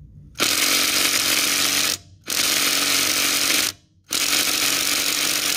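Hart 20V brushed impact driver hammering on a 22 mm lug nut torqued to 120 ft-lb, in three bursts of about a second and a half with short pauses between as the trigger is pulled and let go, working the tight nut loose.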